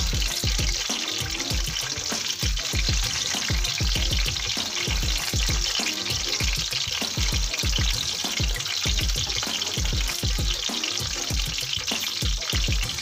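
Eggplant halves frying in hot oil with a steady sizzle, under background music with a regular beat.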